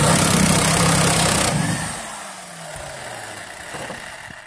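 Electric impact wrench running at full speed on a rear subframe bolt to loosen it. After about a second and a half the trigger is let go and the motor winds down with a falling whine.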